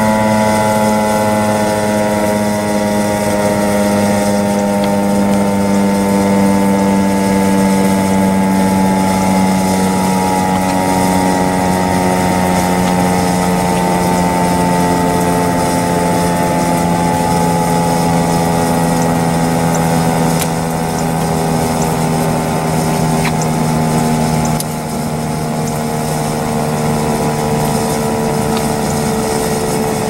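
Federal Signal STH-10 outdoor warning siren sounding the steady alert signal: a loud, continuous multi-note wail whose pitch sags slowly downward.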